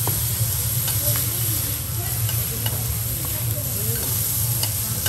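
Meat sizzling on a steel teppanyaki griddle while two metal spatulas scrape and clack against the plate, chopping and turning the pieces, with scattered sharp ticks over the steady sizzle. A low steady hum runs underneath.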